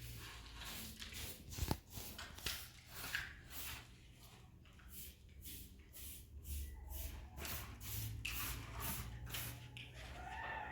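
Chickens clucking over a run of short rustling noises, about two to three a second.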